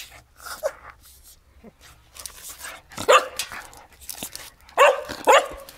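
Cocker spaniel barking: one short bark about three seconds in and two more close together near the end, after a softer short call near the start.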